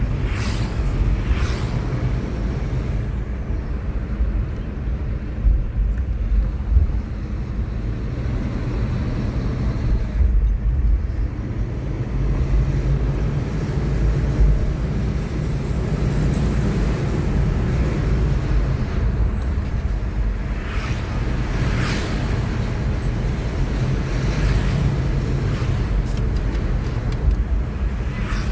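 Steady low rumble of a car driving at road speed, heard from inside the cabin: engine and tyre noise, with a few brief louder swishes as other traffic goes by.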